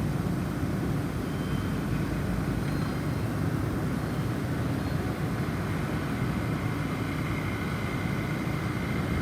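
Snowstorm wind blowing in a steady low rush, with a few faint, high wind chime tones now and then.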